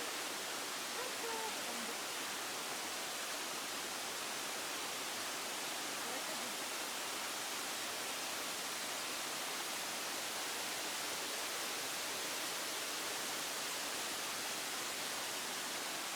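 Waterfall rushing: a steady, even hiss of falling water that stays the same throughout.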